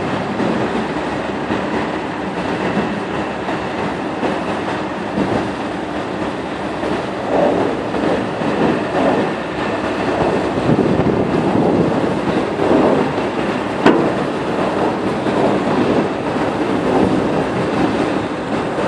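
Telehandler's diesel engine running under load as its hydraulic boom lifts, with the engine note swelling up and down. A single sharp click about two-thirds of the way in.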